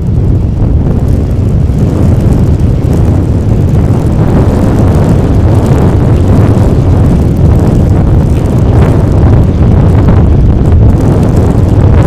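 Cessna 208 Caravan's Pratt & Whitney PT6A turboprop running at taxi power, mixed with heavy wind buffeting the microphone. Loud, steady rumble throughout.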